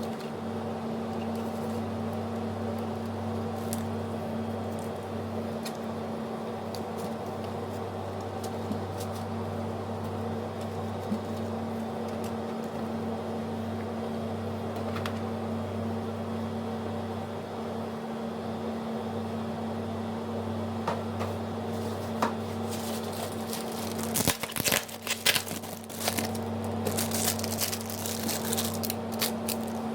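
A steady low hum made of several held tones. In the last several seconds, irregular clicks and crinkling handling noises join it.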